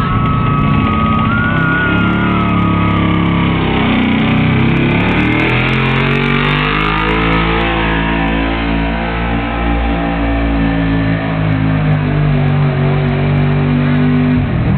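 Pickup truck engine held at high revs under heavy load as it drags a weight-transfer pulling sled, with a thin high whine over it for the first few seconds.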